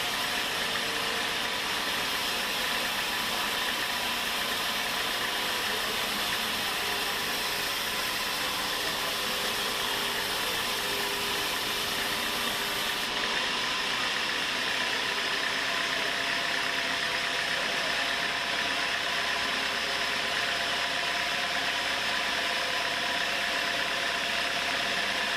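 Sawmill machinery running steadily: an engine-driven hum with several steady tones over a noisy wash, unchanging throughout.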